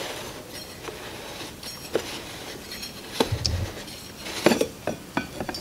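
A few light clicks and scrapes as the large locking ring of a BMW F800GS fuel pump assembly is turned by hand and lifted off the tank, with a soft thump a little after three seconds in.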